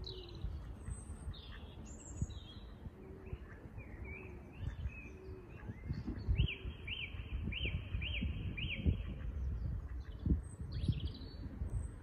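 Small birds chirping and singing in the background, including a run of five quick repeated high notes about halfway through, over a low rumbling noise with occasional bumps.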